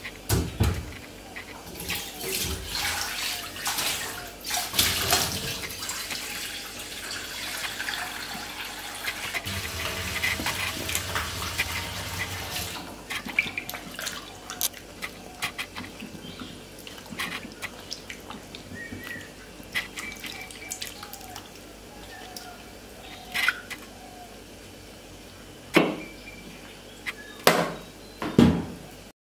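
Water running and splashing as peeled potatoes are rinsed by hand in a metal bowl, loudest in the first dozen seconds, then quieter sloshing and small clicks. Near the end come a few sharp knocks as a potato is set on a wooden cutting board.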